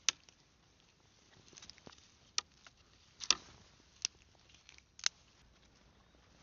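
Dry twigs and sticks snapping in five sharp cracks spread over several seconds, the loudest about halfway through, while firewood is gathered on the forest floor.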